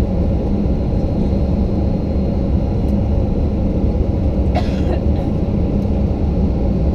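Steady low rumble inside the cabin of a Boeing 737-900 taxiing after landing, from its engines at idle and its wheels rolling over the taxiway. A brief sharper noise comes about four and a half seconds in.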